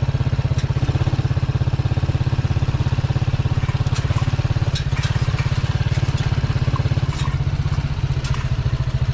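Motorcycle engine running steadily with a fast, even low pulse, with a few light clicks and rattles over it.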